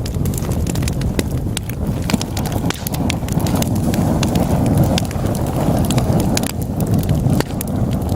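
Wood logs burning in a fireplace, crackling: many sharp, irregular pops and snaps over a steady low rumble of the flames.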